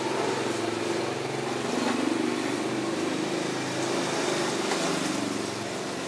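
An engine running steadily, its pitch wavering slightly up and down.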